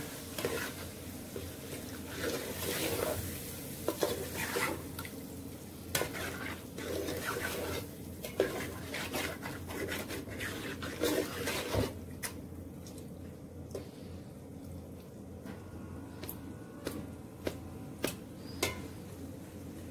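Metal spoon scraping and clinking against a metal pot while stirring chicken livers frying in masala. The clinks come thick for the first dozen seconds, then thin out to occasional taps.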